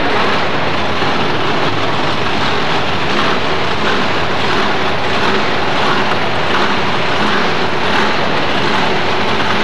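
Mud racing jeep's engine running at the start line, with a wheel loader's engine close by: a loud, even din with no clear revs.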